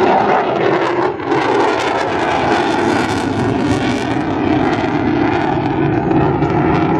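Steady, loud jet noise from a Lockheed Martin F-22 Raptor in flight, its twin Pratt & Whitney F119 turbofan engines.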